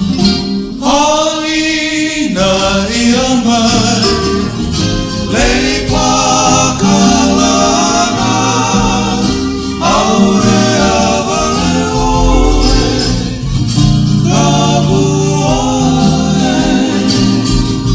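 Hawaiian male vocal group singing a song in close harmony, several voices together in long phrases, over strummed acoustic guitar and ukulele.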